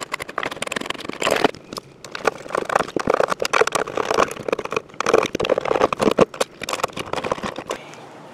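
Hand tools and loose metal and plastic parts clicking, knocking and scraping in irregular bursts as an aftermarket speaker is unbolted from a car's rear parcel shelf. The sounds die down near the end.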